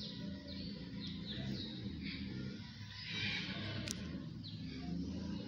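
Felt-tip marker squeaking and scratching on a whiteboard while a sketch is drawn: a series of short high squeaks, with a longer scratchy stroke about three seconds in.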